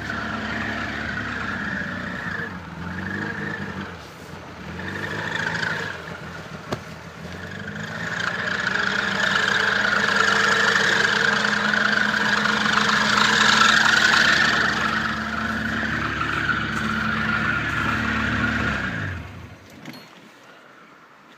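Car engine running in hard frost, rising and falling in speed, then switched off a little before the end, its note sliding down as it stops.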